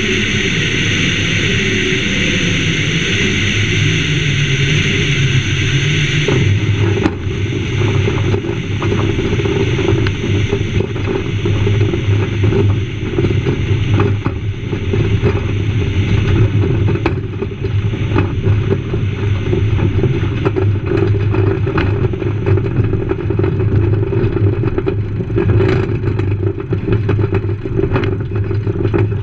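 7ECA Citabria's four-cylinder Lycoming engine throttled back on short final, its pitch falling under a rush of wind. About six seconds in the wheels touch down on the grass strip, and the wind eases while the airframe bumps and rattles over the rough turf as the plane rolls out with the engine running at low power.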